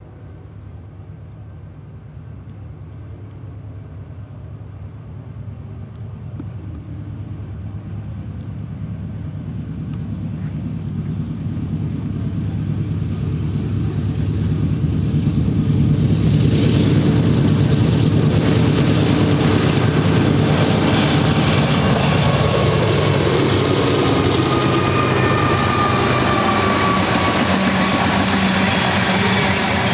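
BNSF GE C44-9W diesel locomotives, 16-cylinder engines working under load, drone steadily and grow louder as they approach over about the first 16 seconds. Loaded covered hopper cars then rumble and clatter past on the rails, with a few thin, squealing tones in the second half.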